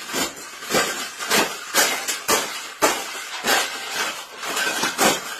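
Wire pet cage being shaken and banged, repeated rattling knocks about two a second.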